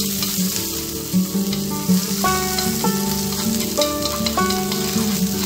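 Sliced pickled scallion bulbs (củ kiệu) sizzling in a nonstick wok as they fry in oil, stirred about with chopsticks. Soft background music with held notes plays under the sizzle.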